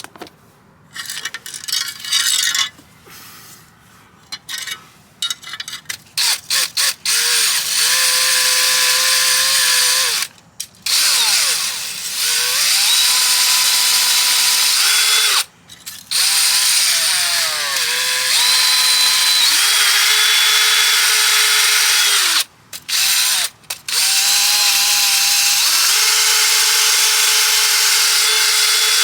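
A power wire brush scrubbing softened rust off metal brackets. After several seconds of scattered clicks and knocks, the motor runs in long stretches with a few short stops, its pitch dipping and recovering as the brush bears on the metal.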